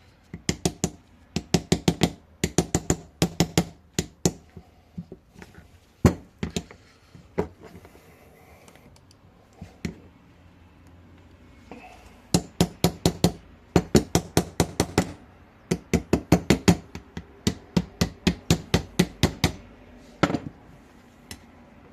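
A small hammer tapping on a rusted ATV brake caliper to free it, in quick runs of sharp blows with short pauses between the runs.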